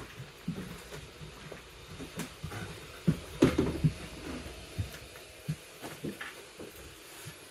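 Footsteps walking along a train coach aisle, soft and about two a second, then a cluster of knocks and clunks about three seconds in as camera gear is handled and set down, with a few scattered knocks after.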